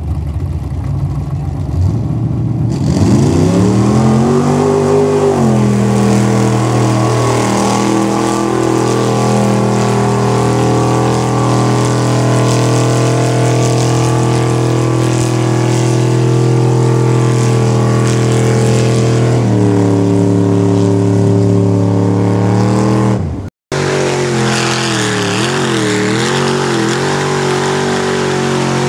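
Off-road vehicle engine revving up and held at high revs at a nearly steady pitch for about fifteen seconds, then easing slightly. After an abrupt break, an engine runs again at high revs, its pitch wavering up and down.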